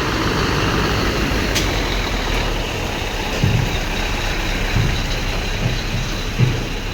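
Heavy truck engine running steadily, with a sharp click about a second and a half in and a few dull low thumps later on.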